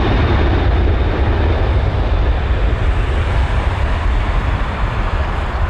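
Lockheed C-5M Super Galaxy's four General Electric F138 turbofan engines running as it rolls along the runway: a loud, steady rush of jet noise over a deep rumble, easing slightly toward the end.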